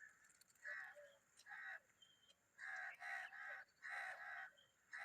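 Harsh, rasping bird calls repeated about seven times, each brief, some coming in quick runs of two or three.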